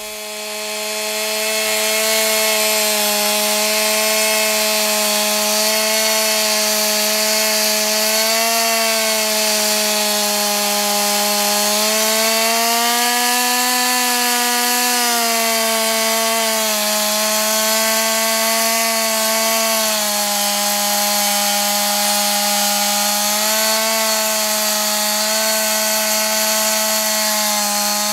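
Stihl chainsaw running under load as it rips lengthwise through the middle of a thick timber slab, finishing cuts the circular saw could not reach. It rises to full level over the first couple of seconds and then runs steadily, its pitch swelling and dipping slightly as the chain bites.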